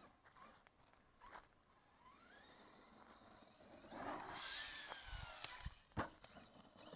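Arrma Kraton 4S BLX RC truck's brushless motor whining, heard from a camera mounted on the truck. The pitch rises as it accelerates, then it gets louder with a falling whine about four seconds in. A sharp knock comes about six seconds in as the truck lands.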